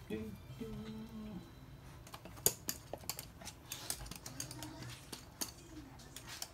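A low, drawn-out vocal sound lasting about a second at the start, then scattered sharp clicks and taps of a toy poodle's claws on a hard floor.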